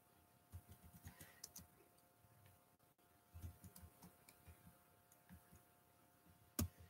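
Faint, irregular keyboard typing and clicking, with one sharper click near the end.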